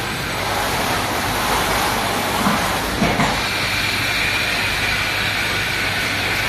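Production-line machinery running steadily, a dense mechanical noise with a constant hiss. There are a couple of light knocks about two and a half and three seconds in.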